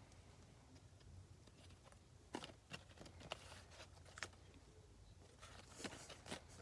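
Faint rustling and light clicks of paper business cards being handled against plastic-bagged comics, a handful of sharp little ticks from about two seconds in, over a low room hum.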